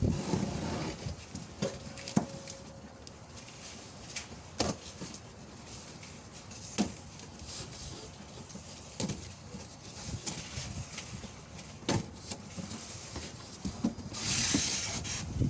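Scattered clicks and knocks from handling car radiator fan parts, with a short rustle near the end.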